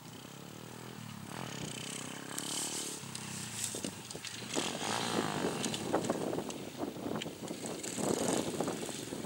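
KXD 612 PRO mini cross pit bike engine revving up and down as it rides the track, growing steadily louder as it approaches.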